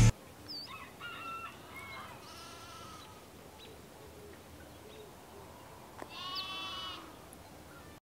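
Sheep bleating faintly: a few short calls in the first couple of seconds, then one louder, longer bleat about six seconds in.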